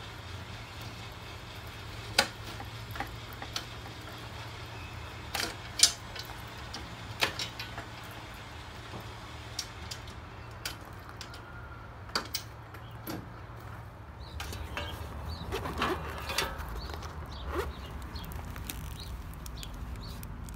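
Scattered clicks and knocks, then a busier stretch of rustling and clatter, as a fabric med-kit pouch is unfastened from a Jeep's tailgate and opened.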